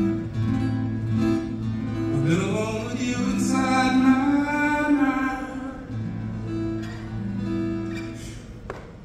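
Male singer accompanying himself on acoustic guitar: about two seconds in his voice slides up into one long held note, over steady guitar chords. The guitar carries on alone after the note and grows quieter near the end.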